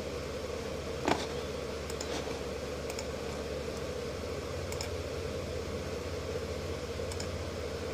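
Computer mouse clicking a handful of times over a steady background hum, the loudest click about a second in.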